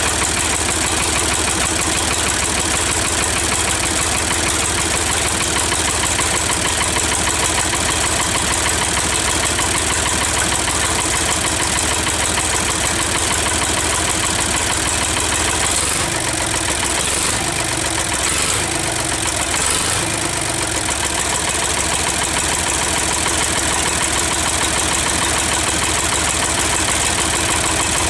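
Ford 4000 three-cylinder diesel engine, mounted on a stand rather than in the tractor, running at a steady idle, its note shifting briefly a little past halfway.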